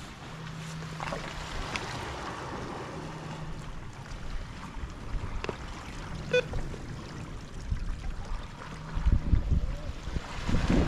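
Water lapping and trickling against a fishing kayak's hull, with wind gusts buffeting the microphone near the end.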